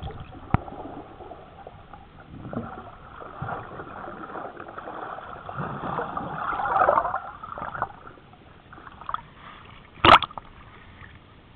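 Muffled underwater sound of sea water churning around a submerged camera, swelling about six to seven seconds in. About ten seconds in, a sharp splash as the camera breaks the surface.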